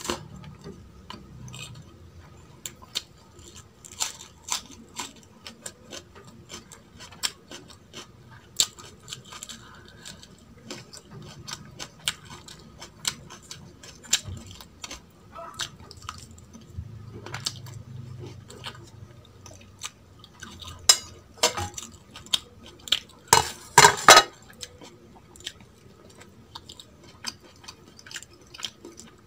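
Close-miked eating by hand: chewing and mouth sounds on mutton and rice, broken by many sharp clicks and taps of fingers and food against a steel plate. The loudest is a quick cluster of clicks about five seconds before the end.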